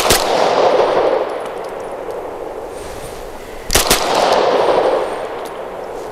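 Gunshots from a Vz. 61 Skorpion pistol in .380 ACP, fired in quick strings: a shot right at the start and a rapid burst of about three shots nearly four seconds in. A long rolling echo fades out after each string.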